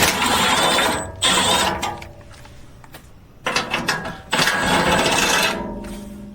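Cordless impact gun with a 12 mm socket spinning out skid plate bolts in four runs of about a second each, the last trailing off.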